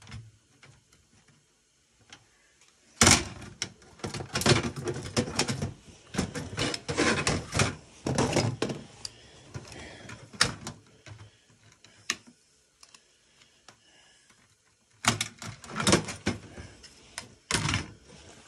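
Hand tools clicking and clanking against a sheet-metal electronics chassis and circuit board as a power board is worked free. The clicks and knocks come in rapid bursts starting about three seconds in and again near the end, with a few single knocks between.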